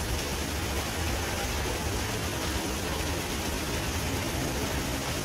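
Steady rushing noise with a low rumble underneath.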